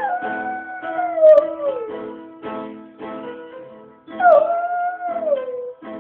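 A golden retriever howling along with piano chords: two long howls that slide down in pitch, one at the start and one about four seconds in.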